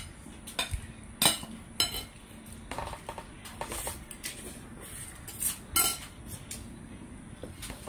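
Spoon and fork clinking and scraping against a plate while eating: a scattering of separate, irregular clinks, several seconds apart at most.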